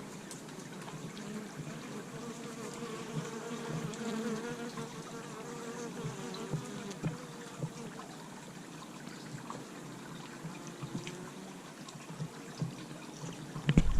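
Honeybees buzzing as they fly in and out of a top-bar hive, several wavering buzzes overlapping. A sudden loud rumble cuts in at the very end.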